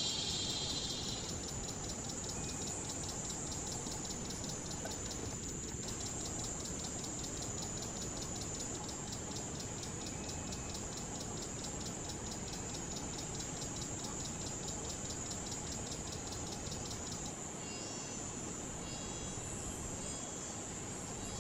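Tropical forest insect chorus: a steady high-pitched whine with a fast, evenly pulsing call over it that stops about 17 seconds in. A louder high buzz fades out about a second in, and short faint high notes sound near the end.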